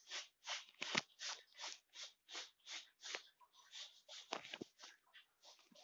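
A kitten's claws scratching a sisal-rope scratching post in quick, even strokes, about three a second, with a few sharper knocks about four and a half seconds in.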